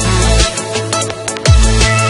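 Electronic background music with heavy bass, including a deep bass note that drops steeply in pitch about a second and a half in.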